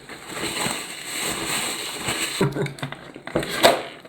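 Close-up mouth sounds of someone eating: about two seconds of crunchy chewing, then a short closed-mouth 'mm' hum and a sharp click near the end.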